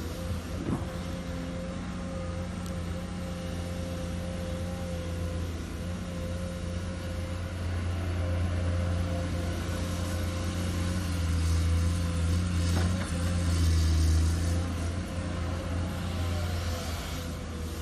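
Komatsu PC210 excavator's six-cylinder diesel engine running under load with a steady hum while it digs sand and lifts a full bucket. It gets louder past the middle as the loaded boom rises and swings.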